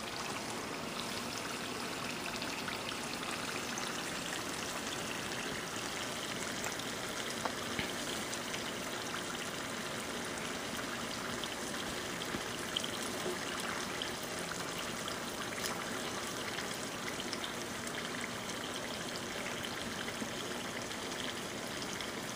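Spring rolls deep-frying in hot oil in a pan: a steady sizzle and crackle, with a few faint clicks.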